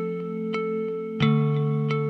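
Background music: sustained, effects-laden chords held under a sharp tick that comes about every two-thirds of a second, with a new chord struck about a second in.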